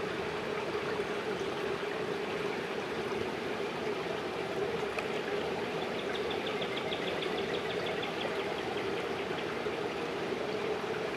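Steady rush of water flowing through a trout hatchery raceway. A faint, fast, high-pitched trill runs through the middle for a few seconds.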